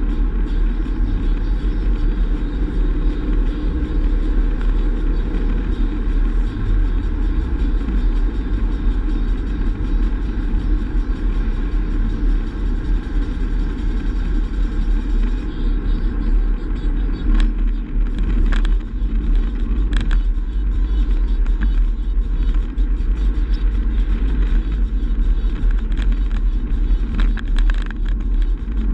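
Steady low rumble of road and engine noise from an Astra GTC being driven, heard from inside the car. A few light clicks or knocks come through in the second half.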